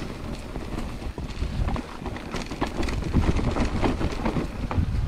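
Mountain bike descending a steep trail: wind buffeting the microphone, with rapid rattles and knocks from the bike and its tyres over the ground.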